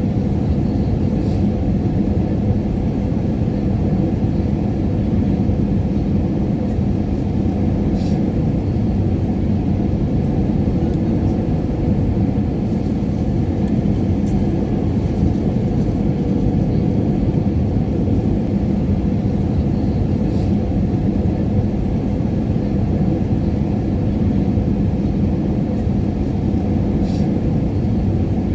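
Airliner cabin noise in flight: a steady, even low rumble with a faint hum running through it, and a few faint clicks.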